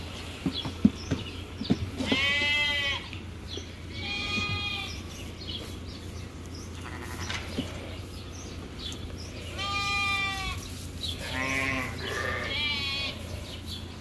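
Lambs bleating, about five separate high calls, some with a quaver. There are a few sharp knocks in the first couple of seconds.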